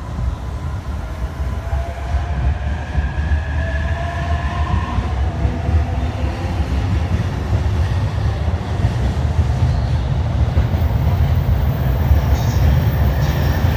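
JR E231-series electric train pulling away from a standstill: a rising motor whine as it speeds up, over a low rumble of wheels on rail that grows louder as the cars roll past, with a few clicks of wheels over rail joints near the end.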